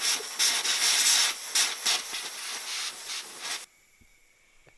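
High-pressure air hissing out of an AirForce Condor PCP air rifle whose valve stem and seal have broken. It is a loud, fluttering hiss that cuts off suddenly about three and a half seconds in, followed by faint room tone.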